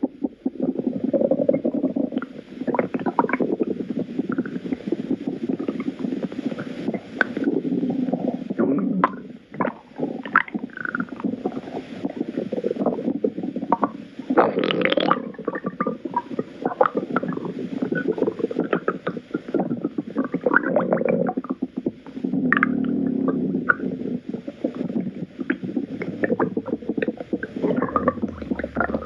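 Stomach growling and gurgling: a continuous low rumble broken by many short, higher-pitched gurgles, with one louder gurgle about halfway through.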